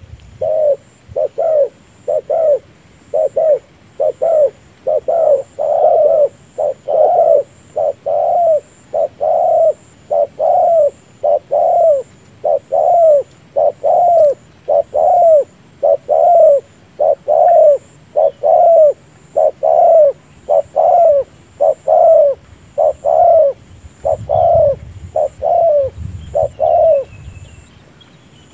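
Spotted dove giving its bowing coo to another dove over and over: short coos about one a second, each rising and then falling in pitch.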